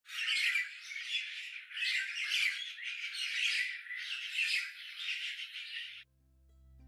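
Birds squawking and chattering in repeated bursts about once a second, thin and high with no low end, cutting off abruptly about six seconds in.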